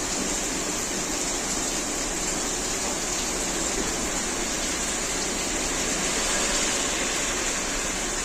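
Heavy rain falling on flooded asphalt: a dense, steady hiss of a downpour.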